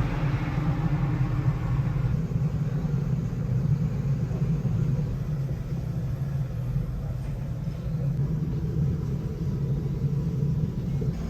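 Car running: a steady low rumble, with a louder rushing noise that fades away over the first couple of seconds.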